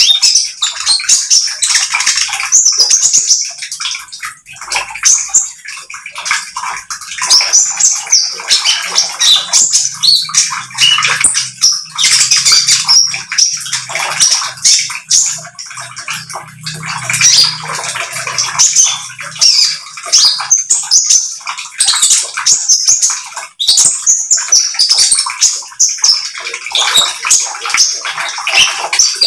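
A caged konin songbird singing a rapid, non-stop chattering trill ('trotol') of high, dense notes, in long runs with brief pauses.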